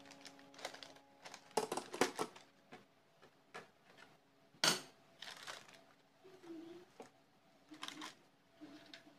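Aluminium cake pan and wire cooling rack clattering and knocking as the pan is turned over onto the rack and lifted off the baked sponge. It is a string of irregular knocks, with one louder clank about halfway through.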